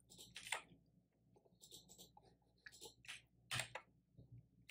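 Faint keystrokes on a computer keyboard, tapped in short irregular runs as a terminal command is typed.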